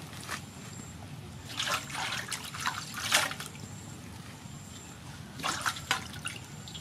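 Water poured in several uneven splashing pours over leafy greens in a woven bamboo basket, trickling through the leaves and the weave as they are rinsed. The loudest pour comes about three seconds in.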